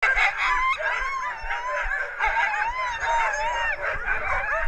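A harnessed team of sled dogs yelping, whining and howling at once, many voices overlapping in long wavering high-pitched cries: the excited clamour of dogs eager to start pulling.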